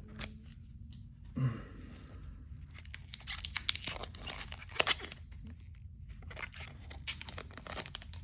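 Foil Pokémon booster pack wrapper being torn open and crinkled in the hands, in quick clusters of crackling, with a soft thump about a second and a half in.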